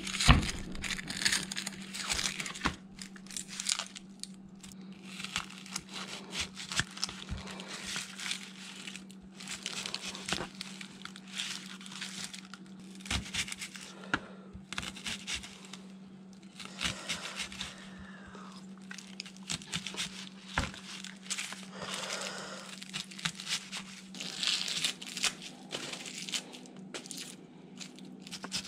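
Red onion being peeled and cut with a chef's knife on a paper plate: the papery skin crinkling and tearing, and irregular knife strokes crunching through the onion.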